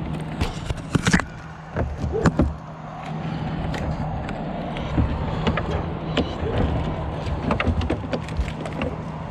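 Bucket truck's engine running steadily, with irregular clicks and knocks of a ratchet strap being worked and tightened around the split trunk.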